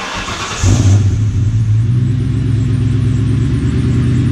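A 2004 Ford Mustang GT's V8 engine firing up about half a second in and settling into a steady idle.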